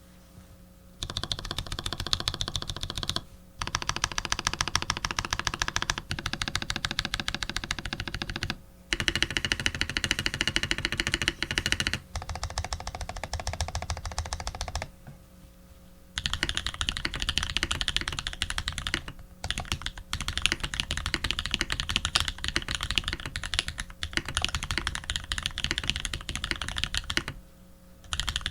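Typing on a TX87 v2 custom mechanical keyboard with lubed Holy Panda tactile switches, a brass plate and PBT keycaps: rapid runs of keystrokes broken by short pauses.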